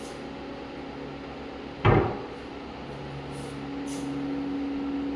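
A single sharp knock about two seconds in, over a steady low hum.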